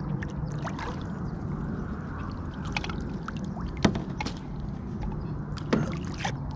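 Pirogue moving through calm marsh water, with light splashing and dripping. Two sharp knocks come about four and six seconds in.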